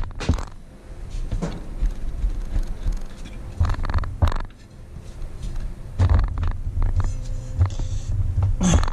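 Handling noise from a Metabo W 22-230 MVT angle grinder, which is switched off, as its plastic wheel guard is worked into place. Scattered clicks and knocks from the guard and the tool body, with a low rumble of the grinder being shifted on the bench.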